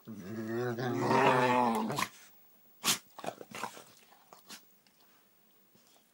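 Dog growling during a play-fight, one low wavering growl lasting about two seconds. About a second after it ends comes a sharp snap, then a few softer snaps and scuffles.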